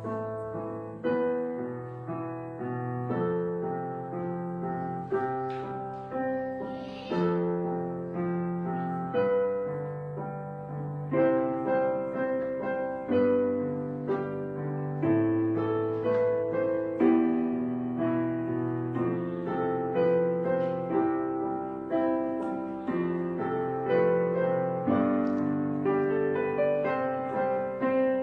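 Background piano music: a slow piece of struck chords, with a new chord sounding roughly once a second and each one dying away before the next.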